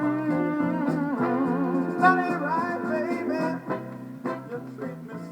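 Soul song playing out to its fade: a band with guitar, held chords and a steady drum beat, with wavering vocal lines over the top, getting gradually quieter.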